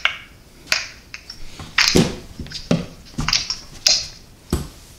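A string of about eight sharp, irregularly spaced hand claps and finger snaps.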